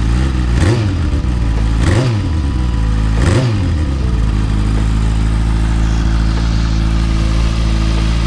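Motorcycle engine idling on new spark plugs, blipped three times a little over a second apart, each rev rising and dropping straight back, then settling into a steady, even idle. The idle no longer skips a beat, a sign the new plugs have cured the rough up-and-down idle.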